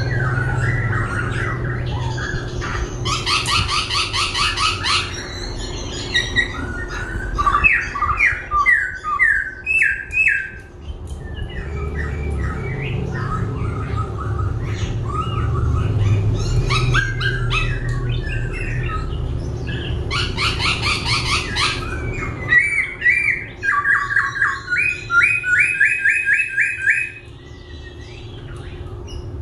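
Black-throated laughingthrush (khướu bạc má) singing a varied song that keeps switching voice: fast rattling trills alternate with runs of repeated whistled notes, over a steady low hum.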